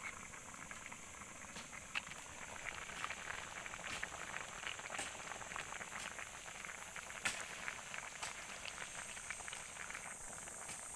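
Food bubbling and crackling in a cooking pot on the heat, a steady patter of small pops with a few sharper clicks now and then.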